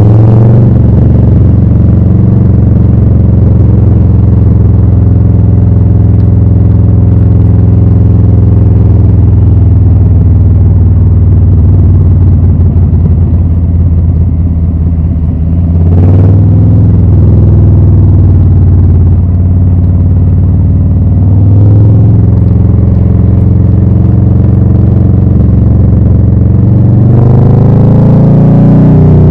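2020 Harley-Davidson Low Rider S's Milwaukee-Eight 114 V-twin running loud through Rinehart slip-on exhausts. The engine note sinks slowly as the throttle eases, dips and picks up again about sixteen seconds in, and climbs with the revs near the end.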